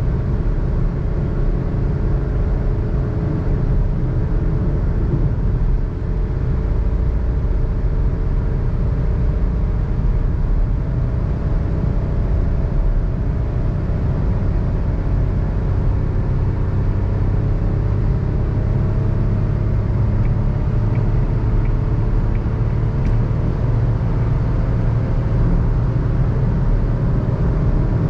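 Suzuki Alto's 660cc three-cylinder engine running hard at highway speed with the air-conditioning compressor engaged, mixed with steady road rumble, heard from inside the cabin.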